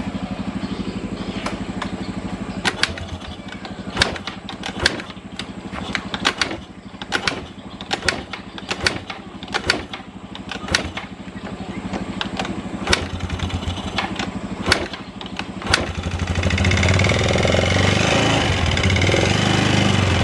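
Carburetted Yamaha Xeon 125 scooter's single-cylinder four-stroke engine running unevenly with irregular sharp knocks, then given more throttle for the last few seconds and running louder. The knock is the 'tek tek tek' that the mechanic suspects comes from a worn piston.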